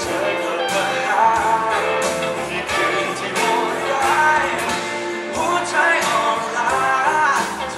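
Live band performance: a male voice sings a Thai pop song over electric guitar, bass guitar and drums.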